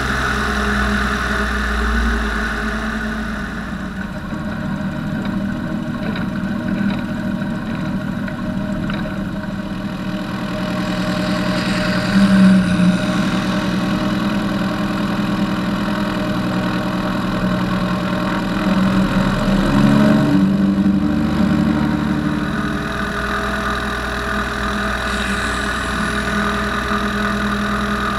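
Light aircraft's piston engine and propeller running at low taxi power, heard from a wing-mounted camera: a steady drone with some wind noise. The engine note swells briefly about twelve seconds in and again around twenty seconds in.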